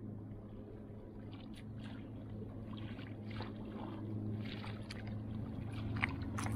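Kayak paddle blades dipping and splashing in lake water, faint strokes about once a second, over a steady low hum.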